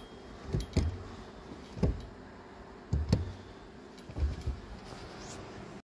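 2019 Kia Forte's brake pedal being pumped by foot, a series of dull knocks, some in quick pairs, as the pedal is pressed and let up. This is the pumping that brings the pedal back up after new front pads and rotors are fitted.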